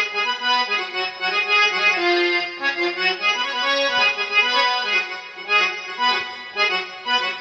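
Casio CT-X9000IN keyboard playing its harmonium tone: a reedy melody of held notes.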